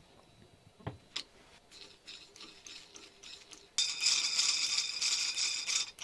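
Typewriter ribbon spool spinning freely on a nail as the ribbon is wound off it by hand. A few light clicks and ticks, then a fast, steady rattling whir for about two seconds near the end that stops abruptly.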